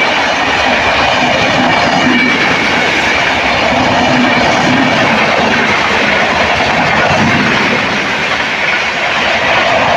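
A train passing, its wheels and cars running loudly and steadily over the track.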